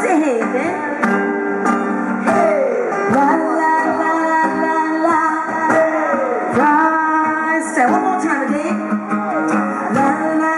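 Live band playing a pop song: a sung vocal melody over guitar and band accompaniment with a steady beat.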